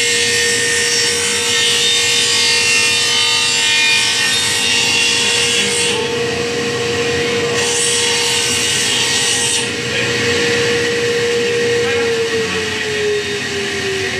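Sliding table saw running with a steady motor whine as a wooden board is fed through the blade, the cutting adding a loud high hiss twice, the first cut for about six seconds and the second for about two. Near the end the whine falls in pitch as the blade spins down.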